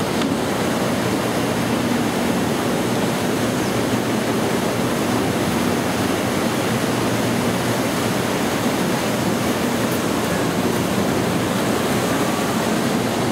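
Steady rush of falling water from Maria Cristina Falls, an even, unbroken noise.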